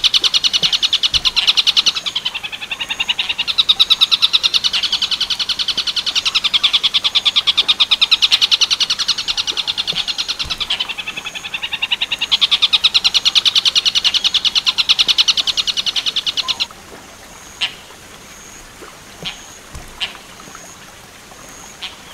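Tengkek buto song: a loud, rapid trill of high, closely repeated notes that sags twice and cuts off suddenly about three quarters of the way in. A pause follows with only a few faint chirps and ticks.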